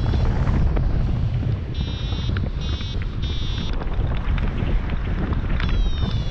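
Wind rushing over the microphone in flight under a paraglider. Above it, an electronic variometer beeps in short trains of high tones from about two to four seconds in, and a held tone starts near the end; the beeps signal the glider climbing in a thermal.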